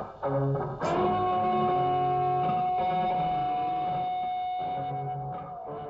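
Background music with electric guitar: a note struck about a second in is held long and slowly fades out toward the end.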